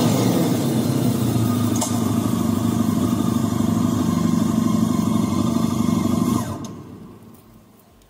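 The 2Electron Emula electric motorcycle's synthesized 600 cc four-cylinder four-stroke engine sound, played by its McFly emulation system while running on a dyno. The note falls in pitch at the very start, then holds steady revs before fading out over the last second and a half.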